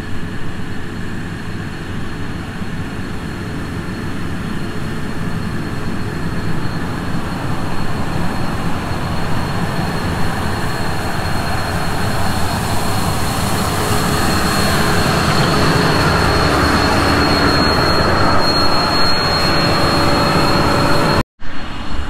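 Self-propelled almond sweeper's engine and blower fan running as the machine approaches, growing steadily louder, with a thin steady high whine over the rushing noise. The sound cuts off suddenly just before the end.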